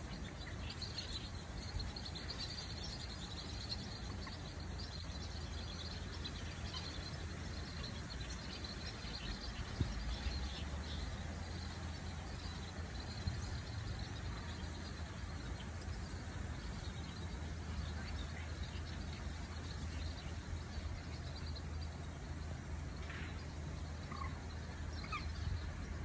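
Many faint, high bird chirps and calls over a steady low rumble, thickest in the first half and dropping to a few scattered calls near the end.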